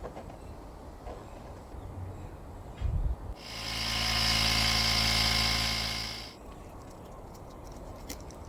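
A small electric motor runs at a steady pitch for about three seconds, swelling in and fading out, with a couple of low thumps just before it.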